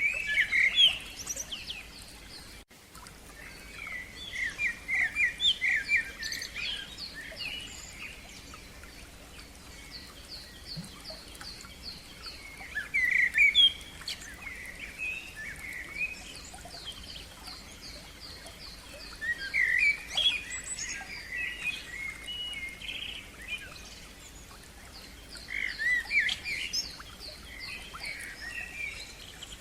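A songbird singing in phrases of whistles and rapid repeated-note trills, in bursts about every five to seven seconds.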